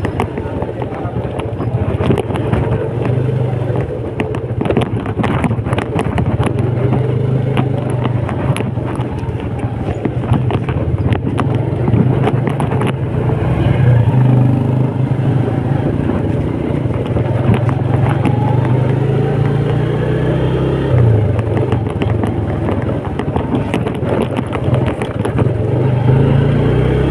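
Motorcycle engine running at speed while being ridden, its pitch rising and falling a few times with the throttle, mixed with wind buffeting the microphone.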